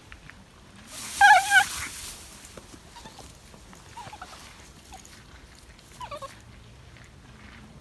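Cavalier King Charles Spaniel whimpering: a loud high-pitched double yelp about a second in, then short, softer whines every second or so, one falling in pitch near the end.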